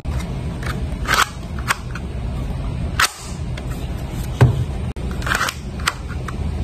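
Sharp plastic clicks and clacks from a 3D-printed Thompson 1928 submachine gun model as its mechanism is worked by hand, about six spread irregularly over a few seconds, over a steady low hum.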